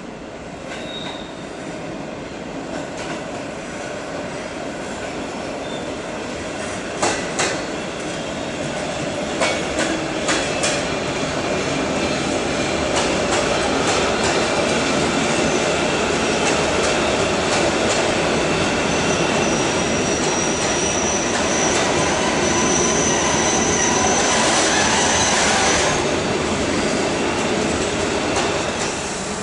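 Freight train hauled by an SBB Re 620 electric locomotive approaching, its rumble building steadily. Sharp clacks of wheels over rail joints or points come about a quarter of the way in, and a high steady wheel squeal sounds in the later part.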